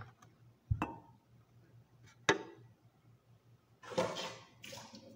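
Hard objects being set down and handled on a kitchen counter. Two separate sharp knocks are followed near the end by a longer clatter and rattle.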